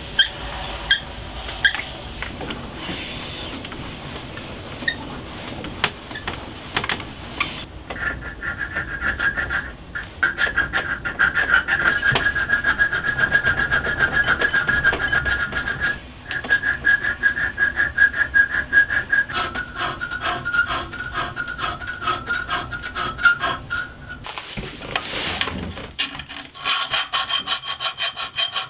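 A small metal file works back and forth in quick, even strokes through the drilled slot of a thin copper knife guard, the guard ringing with a steady tone. Scattered clicks and knocks come before the filing starts.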